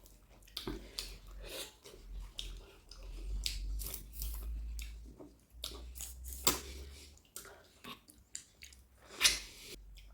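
A person chewing and biting food close to the microphone: irregular wet mouth sounds and sharp crunchy clicks, two louder ones about six and a half and nine seconds in.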